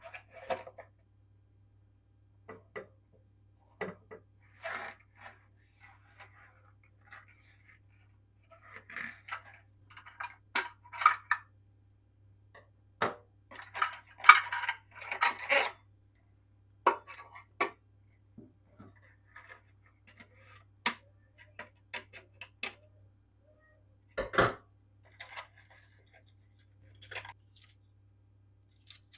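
Sporadic clinks, taps and clatter of dishes and cutlery being handled, busiest in the middle with a sharper knock near the end, over a faint steady low hum.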